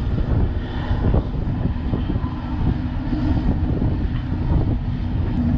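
Steady low rumble of an idling heavy diesel truck engine, with a few faint knocks about a second in as a converter dolly is pushed by hand.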